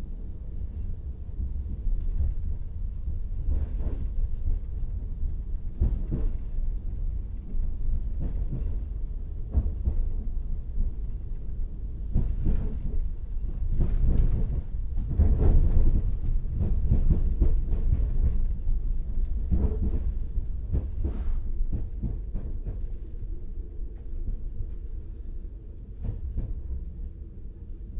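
Regional train running, heard from inside the carriage: a steady low rumble with irregular clunks and knocks, loudest about halfway through and easing off toward the end.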